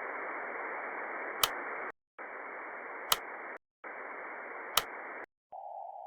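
Three bursts of radio-style static, each about one and a half seconds long with short silent gaps and a sharp click partway through each. About five and a half seconds in, the static narrows to a thinner, band-limited hiss, as through a narrow receiver filter.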